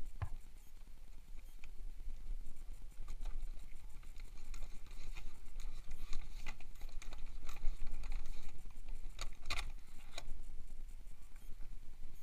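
Scattered light clicks, taps and rustles of hands fitting a mini dirt bike's front wheel: the metal axle sliding through the hub and knocking against the brake disc and spacers, with a cluster of sharper clicks about nine and a half seconds in.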